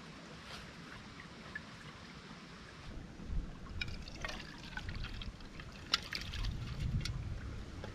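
Broth being poured from a stainless steel pot into a bowl, starting about three seconds in, followed by a spoon clicking and scraping against the pot as the chilies, greens and crab are tipped out after it.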